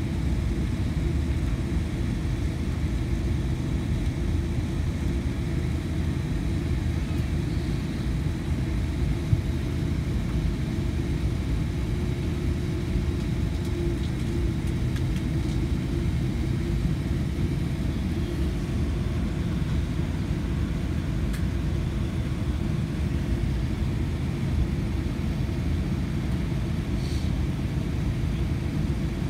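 Cabin noise of a Boeing 787-10 taxiing: a steady low rumble from the engines at idle and the aircraft rolling along the taxiway.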